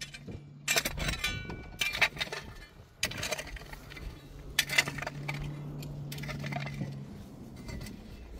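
Hard objects clinking and clattering about six times, one strike leaving a brief ringing tone, over a low steady hum.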